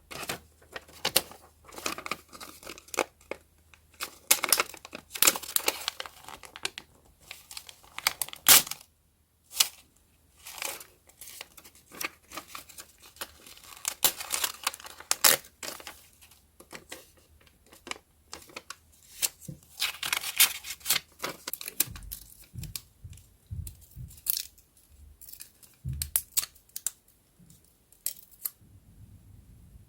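Close-miked paper being torn and crinkled in a run of short rustling strokes with brief pauses. In the last several seconds the rustling thins out and soft low thuds come in.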